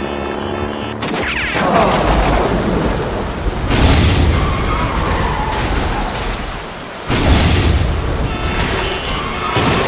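Lightning-strike sound effects: a falling sweep, then crackling noise and heavy booms. The loudest blasts come about four and seven seconds in. Light background music plays in the first second.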